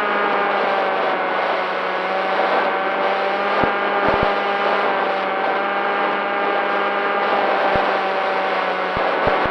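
Electric motor and propeller of an FX-61 flying-wing model plane running steadily at cruise: a droning whine with many overtones that wavers slightly in pitch. Short low thumps come now and then.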